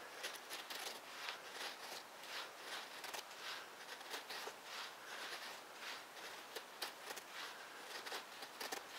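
Knife blade shaving thin curls off a pine stick to make a feather stick: a faint, even run of short scraping strokes, about two to three a second.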